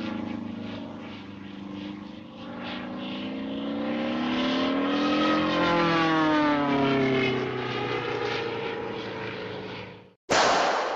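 Cartoon propeller-airplane sound effect: an engine drone whose pitch rises and then falls as it flies past, stopping about ten seconds in. A loud, short bam follows at once.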